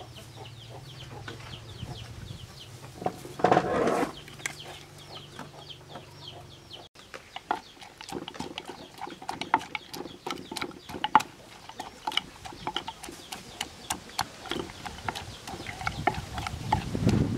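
Chickens clucking in the background; a brief loud noise about three and a half seconds in. From about seven seconds on, a wooden pestle knocks irregularly in a wooden mortar, several strokes a second, with a metal spoon scraping as the salad is pounded and mixed.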